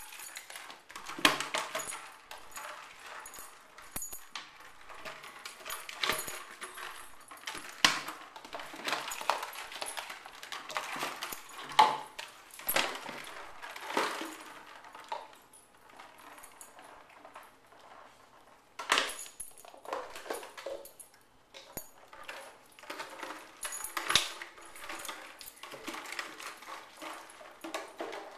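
Clear plastic bottles filled with popcorn being pushed, rolled and chewed across a carpet by dogs: irregular plastic crackles, knocks and clatters, on and off.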